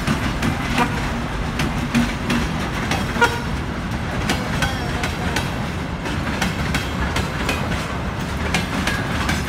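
ChME3 diesel shunting locomotive hauling a train of tank cars past: a steady low engine and rolling rumble with many scattered wheel clacks over the rail joints.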